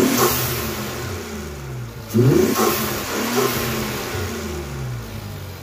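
Infiniti Q60's VR30 3.0-litre twin-turbo V6 running with newly fitted open AAM Competition intakes. It is revved twice, at the start and about two seconds in, and each rev falls back toward idle. This is the engine's first run after the intake install.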